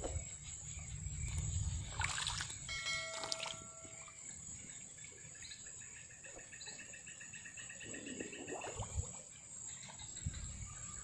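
Crickets and other insects chirring in a steady high, thin drone, with a faster pulsed trill joining for a few seconds in the middle. A short bell-like chime rings about three seconds in.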